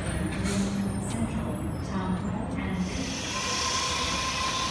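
Double-deck Sydney Trains electric train standing at the platform with its doors open. About two and a half seconds in, a hiss of compressed air starts, and a moment later a steady high tone begins and holds.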